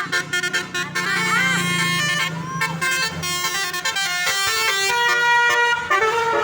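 Tour bus's telolet horn, a multi-tone musical air horn, playing a rapid tune of short notes that change pitch quickly, several sounding at once, with a few sliding notes. It stops near the end.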